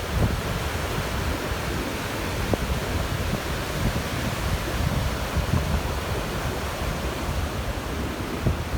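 Wind blowing on the microphone over a steady rush of ocean surf.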